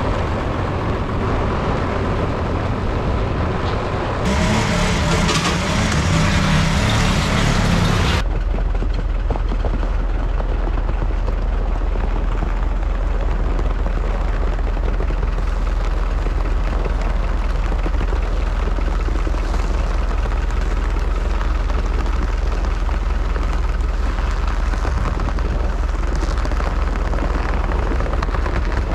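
Tractor engine running steadily while towing another tractor on a chain. From about 4 to 8 seconds in the sound is louder and brighter, then drops back abruptly.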